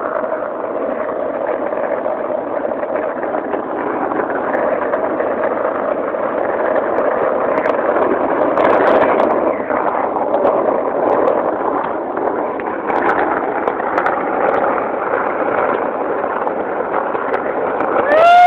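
Steady rolling noise of skateboard wheels on asphalt, heard from a moving board, with a few faint clicks along the way.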